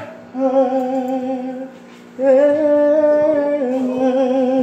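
A man singing R&B a cappella without words, holding two long notes with vibrato; the second begins about two seconds in and steps down in pitch partway through.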